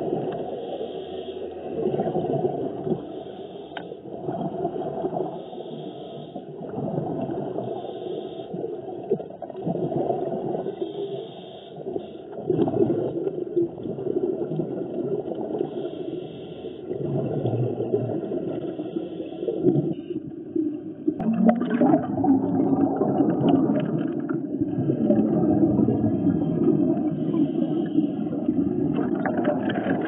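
Underwater sound of a scuba diver's breathing: exhaled bubbles from the regulator gurgling and rumbling in repeated surges over a muffled water wash, growing louder in the second half.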